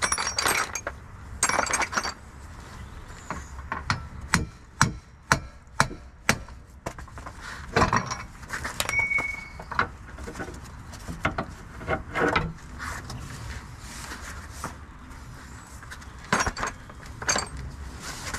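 Metal hand tools and parts clinking and knocking during work on a car's front hub, with a run of about five sharp metal strikes about half a second apart around four to six seconds in.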